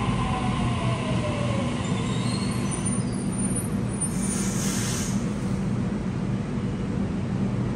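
Sydney Trains double-deck electric train braking to a stop in an underground station: its motor whine falls in pitch and dies away in the first two seconds, then a brief hiss of air from the brakes about four seconds in, over a steady low hum.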